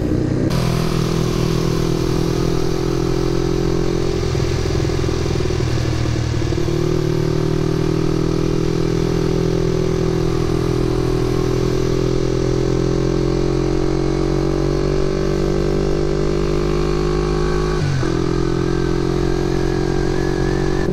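Motorcycle engine running steadily under way, with wind rushing over the microphone. The engine note shifts a few seconds in and breaks off briefly near the end before picking up again.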